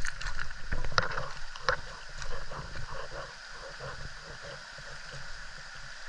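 Rushing stream water with a few sharp splashes in the first two seconds, over a steady low rumble.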